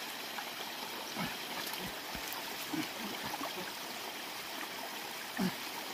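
A stream's water running steadily, with a few faint short knocks scattered through.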